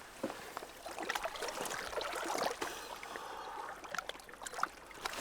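Small irregular splashes and trickling water in the shallows as a hooked fish thrashes and is grabbed at by hand.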